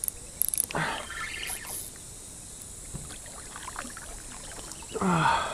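A hooked fish splashing and thrashing at the water's surface beside a canoe, with a splashy burst about a second in and another louder one near the end, where a short voice sound also comes through.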